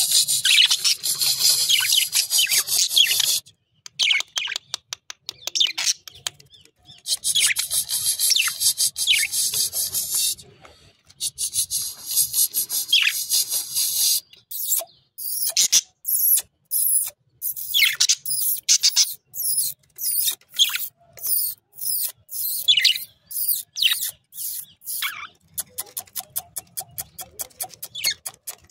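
Budgerigars warbling in stretches of rapid, high chatter a few seconds long, then giving short chirps that drop in pitch, about one a second. A run of quick clicks comes near the end.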